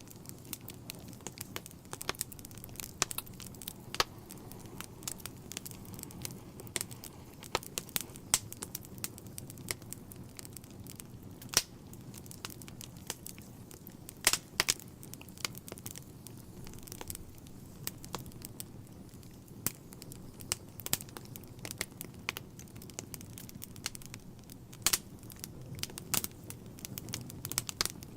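Wood logs burning in a fireplace: irregular sharp crackles and pops, a few louder than the rest, over a soft, steady low rumble of the flames.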